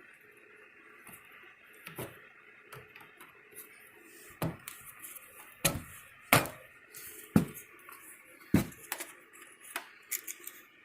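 Clinks and knocks of metal and plastic parts and hardware being handled, a scattered run of sharp strikes, several of them loud in the middle, over a faint steady hiss.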